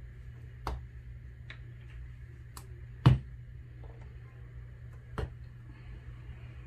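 Plastic squeeze bottles and paint cups being handled and set down on a tabletop: several sharp clicks and knocks, the loudest about three seconds in, over a steady low hum.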